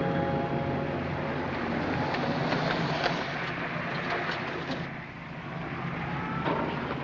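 City street traffic noise as a large car pulls up at the kerb, with a couple of sharp clicks about three and four and a half seconds in.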